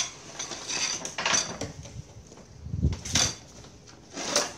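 Metal spoons clinking and scraping against ceramic plates and bowls during a meal. There are several sharp clinks, and a duller knock about three seconds in as a plate of rice is set down on a wooden slat table.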